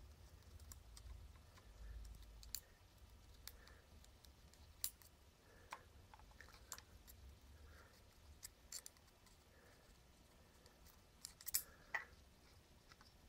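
A dozen or so faint, scattered metallic clicks and ticks as valve keepers and a magnetic pick tool touch a valve spring retainer and a spring compressor tool on a cylinder head. A low hum runs underneath.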